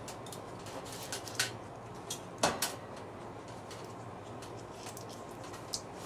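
Hands working heater wiring and plastic connectors against a sheet-metal drain pan: scattered light clicks and rustles, with a louder clatter about two and a half seconds in, over a steady low hum.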